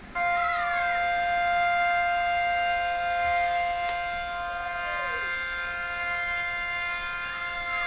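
Outdoor warning siren sounding a steady, constant-pitch chord of several tones, cutting in abruptly at the start. This is the alert signal of a county siren test.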